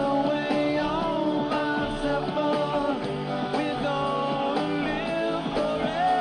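Rock music with electric guitar and a melody line that bends in pitch, over a steady beat.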